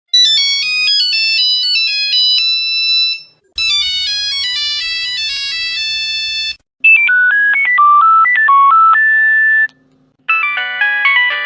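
Nokia mobile phone ringtones played one after another: four short, different electronic melodies of about three seconds each, with brief gaps between them. The last begins about ten seconds in.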